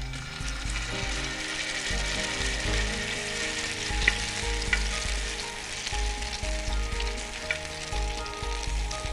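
Spinach pancake batter sizzling as it fries in hot oil on a nonstick tawa, with a few sharp clicks of the metal ladle against the pan.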